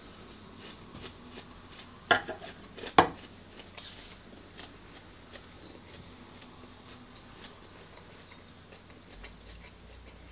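Quiet eating at a table: faint chewing and small ticks, with two sharp clicks about a second apart a couple of seconds in.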